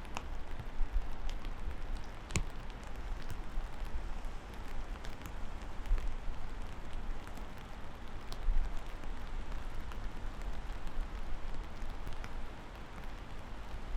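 Steady rain falling, a constant hiss with scattered louder drops striking close by, one sharp drip about two seconds in, over a constant low rumble.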